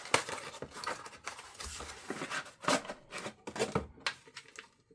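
Packaging being handled and unwrapped: irregular rustling and crinkling with light knocks, as the kit's power supply is taken out of its wrapping.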